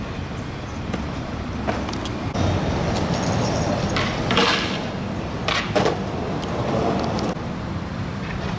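Skateboard wheels rolling over pavement, a steady low rumble, with a few sharp clicks and knocks along the way.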